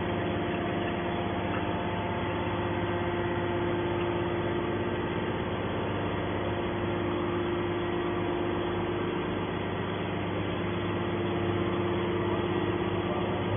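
Hydraulic scrap metal baler's motor and pump running with a steady hum.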